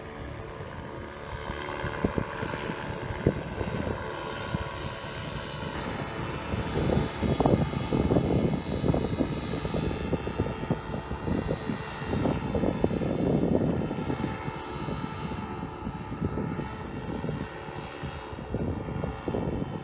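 Paramotor engine and propeller running steadily in flight as the paramotor flies away overhead, with gusts of wind buffeting the microphone from about six seconds in.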